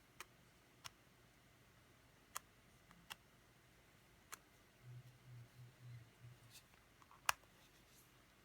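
Faint room tone with scattered small sharp clicks, about seven of them, the sharpest about seven seconds in, and a soft low rumble between about five and six and a half seconds in.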